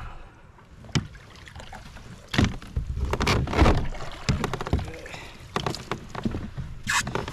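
Knocks, thumps and scrapes against a Hobie kayak's plastic hull and seat as a person climbs aboard from shallow water and settles in. The sounds are busiest and loudest in the middle, with scattered smaller knocks after.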